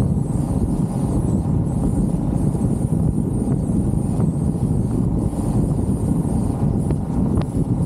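Wind buffeting the microphone and steady low road and engine rumble inside a moving open-top Jeep, with a faint high whine over it.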